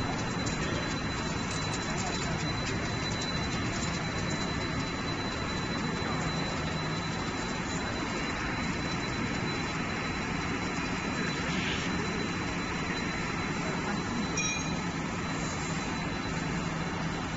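Galvanized steel tape slitting machine running: a steady mechanical rush and hum with a thin, high, steady whine over it.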